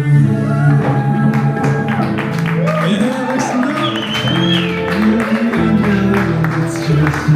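Music with guitar over held bass notes, with a voice over it.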